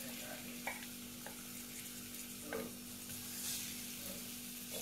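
Finely chopped garlic sizzling softly in a little oil in a frying pan, with a few light taps and scrapes of a wooden spatula stirring it.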